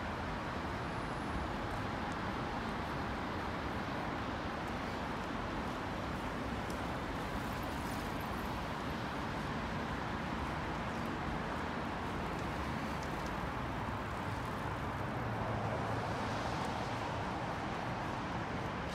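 Steady road traffic noise from cars on the avenue and the elevated expressway alongside, with one vehicle passing a little closer and louder near the end.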